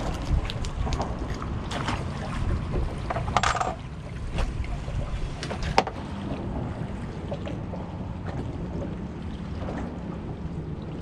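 Wind and water sounds around a small open fishing skiff. In the first six seconds there are scattered clicks and knocks from a fish and tackle being handled, the sharpest near the six-second mark; after that only the steady wind and water remain.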